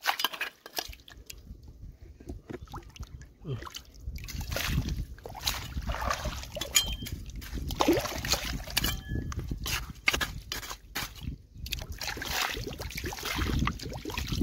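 Water sloshing and splashing, with many irregular clicks and knocks over a low rumble that grows louder about four seconds in.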